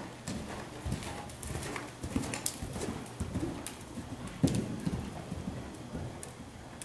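Hoofbeats of a ridden horse moving over the sand footing of an indoor arena: a run of uneven thuds with sharper clicks over them, the loudest about four and a half seconds in.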